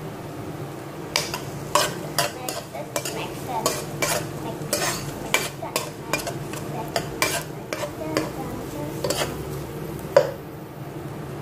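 A utensil stirring chopped garlic and onion in oil in a nonstick pot, clicking and scraping against the pan in irregular knocks, with a faint frying sizzle. A steady low hum runs underneath.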